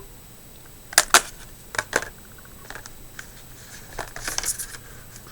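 Small hard plastic objects handled: sharp clicks and taps from a phone battery and phone, two close pairs of clicks about a second and two seconds in, then a quick rattle of ticks near the end.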